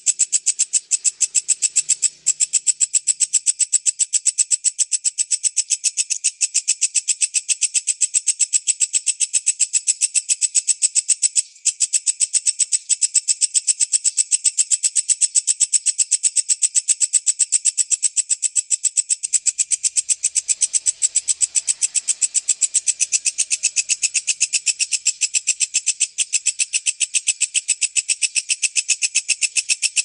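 Walang kecek, a singing grasshopper, trilling in a fast, even train of high, rasping pulses, the tight-paced "speed rapat" trill used as training audio for songbirds. It breaks off twice for a moment, about two seconds in and near the middle.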